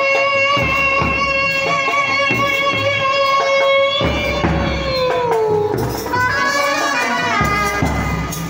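Indian street brass band playing, with a bass drum beating steadily under a long held melody note. The note slides down in pitch about five seconds in, and a new phrase starts shortly after.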